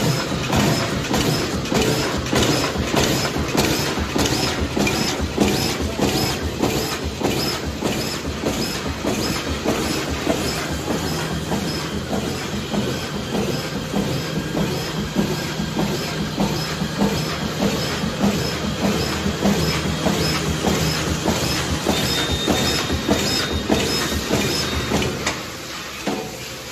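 Fully automatic plastic bag-making machine running at production speed: a steady, loud mechanical clatter with an even, rapid beat of several strokes a second from its cutting and sealing cycle. It gets quieter shortly before the end.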